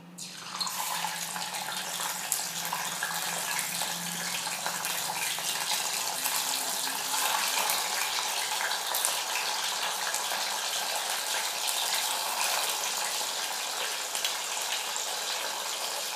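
Fish pieces frying in hot oil in a pan: a dense, steady sizzle that starts about half a second in as the fish goes in.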